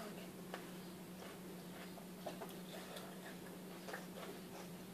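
Quiet room tone with a steady low hum and a few faint, irregular ticks and clicks.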